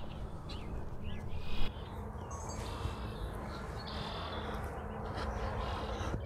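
Small birds chirping and trilling in short repeated phrases over a steady rushing background, with one brief knock about a second and a half in.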